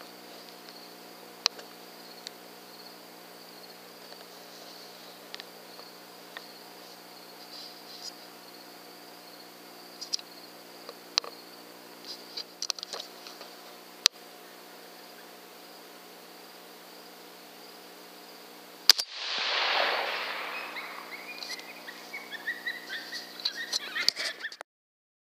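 Crickets chirping steadily in a field at night, with scattered faint clicks. About three-quarters of the way through, a single rifle shot at a coyote, its report rolling away for a couple of seconds, followed by a few short high-pitched calls.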